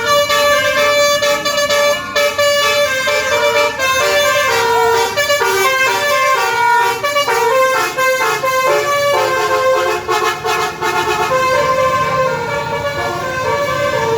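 Bus 'basuri telolet' musical air horns, a roof-mounted set of many trumpets, playing a tune of held notes that change in steps, several sounding at once.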